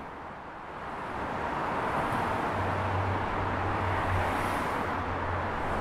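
Steady outdoor city traffic noise, growing a little louder after the first second, with a low hum joining about halfway in.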